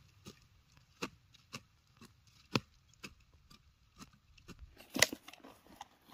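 A hand hoe chopping into grassy hillside soil in short, sharp strikes, about two a second, with one louder strike about five seconds in.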